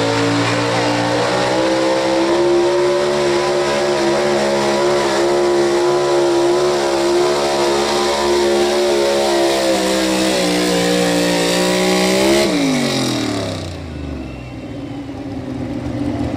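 Pro Stock 4x4 pulling truck's engine run at high, nearly steady revs under load. About twelve seconds in, the revs fall away steeply and the engine drops to a much quieter, lower idle: the driver lifting off at the end of the pull.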